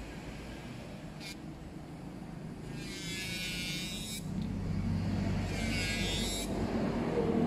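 Electric nail drill running with a steady hum that grows louder, its bit grinding on acrylic nail in two stretches of about a second each, about three and six seconds in.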